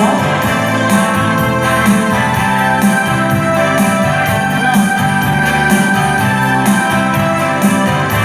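Instrumental break in a song: keyboard with an organ-like tone over a steady bass beat, no singing.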